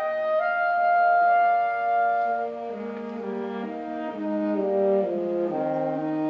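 High school symphonic band playing a slow passage of held chords. A long sustained note sits on top in the first half, then the lower voices move through a series of new notes in the second half.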